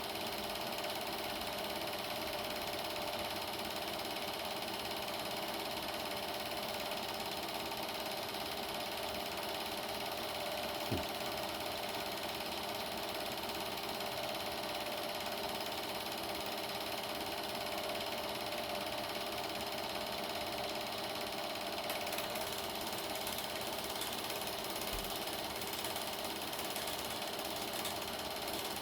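Super 8 film projector running steadily, its film transport making a continuous mechanical whirr, with a single click about eleven seconds in.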